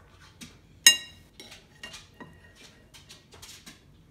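Light taps and clicks of a toddler handling crayons and a bowl on a table, with one sharp ringing clink about a second in.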